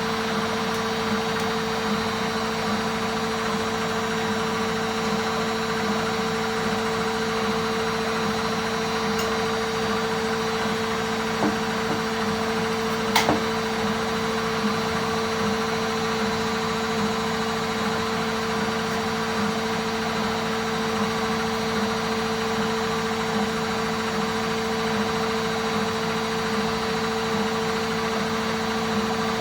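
Washing machine spinning at a steady high speed, with a constant motor whine and hum that holds one pitch; a single sharp click about halfway through.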